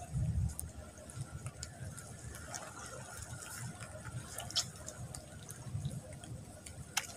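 Wet tidal mudflat ambience: scattered small clicks and pops, with low wind rumble on the microphone, strongest at the very start.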